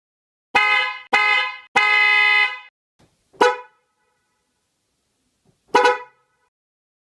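Mitsuba Alpha II Compact dual-tone electric horn (400 Hz and 480 Hz) sounding in five blasts: two short honks, a longer one of about a second, then two quick toots spaced apart.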